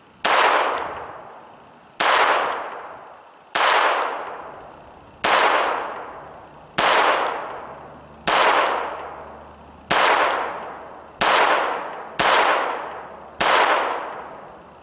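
Smith & Wesson M&P 22 .22 LR pistol firing CCI standard velocity rounds in slow, aimed fire: ten shots about one and a half seconds apart, each report trailing off over about a second.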